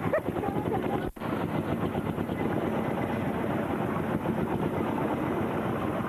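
Engine running loudly and steadily with a fast pulsing beat, cut off for an instant about a second in.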